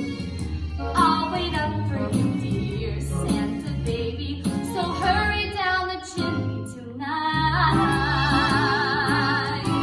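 A young woman singing solo with instrumental accompaniment. Near the end she holds one long note with vibrato.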